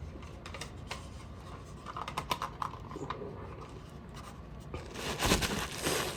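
Small clicks and scratching from handling a smoke alarm as a Duracell battery is fitted into a Sunbeam unit, with a cluster of clicks about two seconds in and a rustle near the end.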